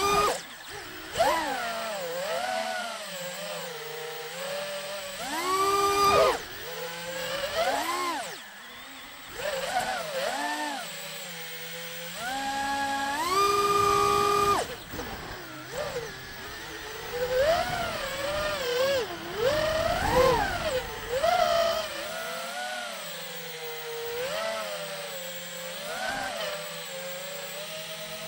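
Apex FPV quadcopter's brushless motors and propellers whining, the pitch rising and falling constantly as the throttle is worked, with several sharp climbs to a briefly held higher pitch on bursts of throttle.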